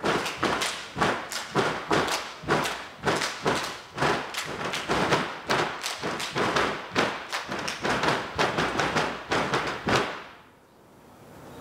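Step team stepping in unison: a fast rhythm of foot stomps and hand claps, several strikes a second, that stops sharply about ten seconds in.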